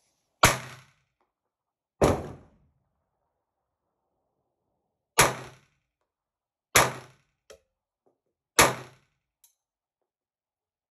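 Walther P22 pistol firing .22 LR rounds one at a time: five sharp cracks, each with a short ringing tail, spaced one to three seconds apart, with a couple of faint clicks between the last shots.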